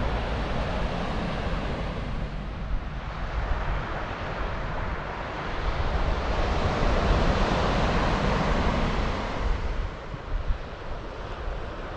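Wind buffeting the microphone over the steady rush of surf breaking on a sandy beach below. The noise swells for a few seconds past the middle, then eases.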